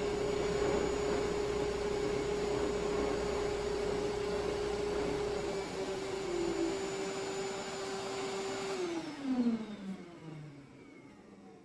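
Electric woodworking power tool running steadily with a constant whine, then switched off about nine seconds in, its pitch falling as the motor spins down.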